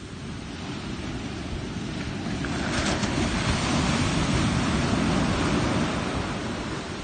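Ocean surf: a wave breaks close by with a crash about three seconds in. The rushing wash swells, then eases off near the end.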